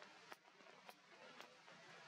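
Near silence: faint outdoor hiss with three soft ticks about half a second apart.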